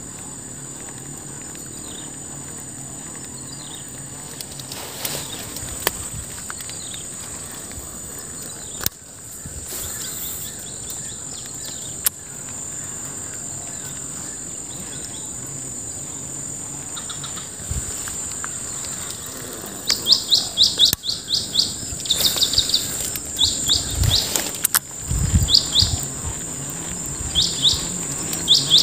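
Insects droning steadily at a high pitch, with a bird calling in quick runs of rising chirps during the last third. A few sharp clicks and some low thumps near the end.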